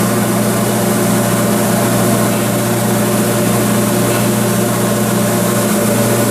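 Kekeisen UBF 3000/15 bed milling machine running with a steady, unchanging mechanical hum.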